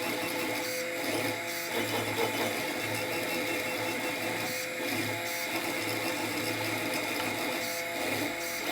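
Monoprice Select Mini 3D printer's stepper motors whining steadily as it prints. A low hum underneath pulses on and off about twice a second.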